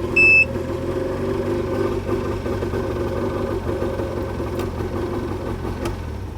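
Boat outboard motor idling steadily after starting on the key, with a short high beep about a quarter second in. It runs after the controller was cycled through forward, neutral and reverse to cure its no-start.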